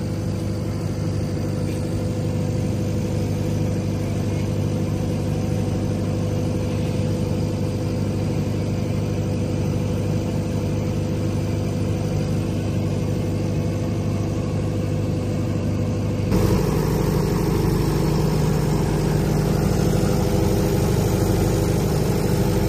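Yangdong Y490D four-cylinder diesel generator set running steadily at constant speed. About sixteen seconds in, the sound turns suddenly louder and harsher and then stays steady.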